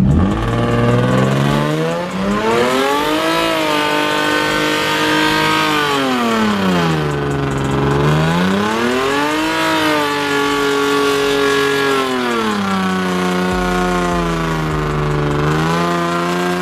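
Infiniti G35 coupe's V6 revving hard through a burnout, its rear tyres spinning in smoke. The revs climb over the first few seconds and hold, dip about seven seconds in, climb again, then fall back and hold at a lower, steady pitch for the last few seconds.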